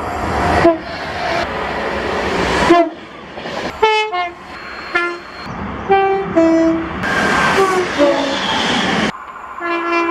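Train horns sounding in a series of short blasts, several different horns one after another with abrupt changes between them, over the noise of passing trains.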